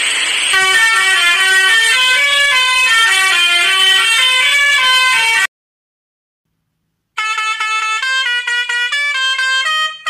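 Indian truck musical horns playing tunes: a quick melody of stepped horn notes for about five and a half seconds. After a short silence, a second, different horn tune starts and runs on.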